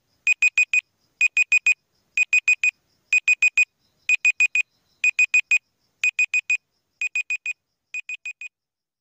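Countdown timer sound effect: an alarm-clock-style bleep, four quick, high electronic beeps in a burst, repeated once a second nine times. The last two bursts are fainter as the countdown runs out.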